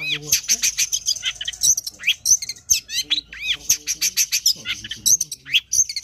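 Long-tailed shrike (cendet) singing a rapid, varied chattering song of quick high chirps and arching whistled notes, one phrase after another with hardly a pause.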